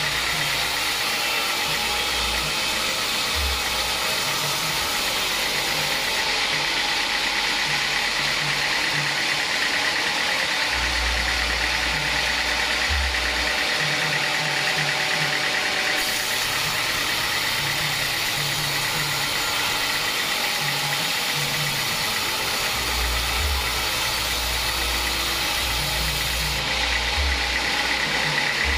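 Assembled band-saw mill running steadily, its blade sawing through a teak log, with low rumbles that come and go.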